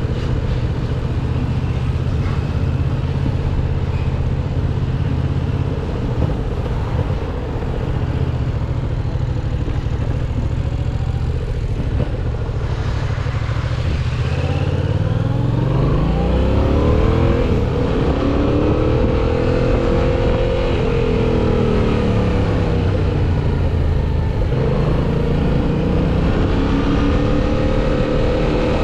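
Yamaha MT-07's parallel-twin engine riding on the road at a steady note, then revving up under acceleration about halfway through. The revs drop back and climb again near the end.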